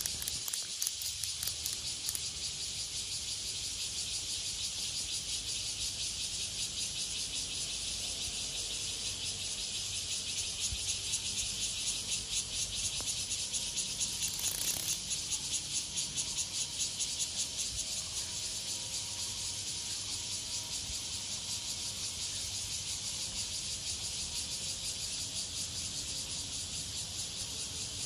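Cicadas singing: a steady high buzzing drone with a fine, rapid pulse that swells a little about halfway through.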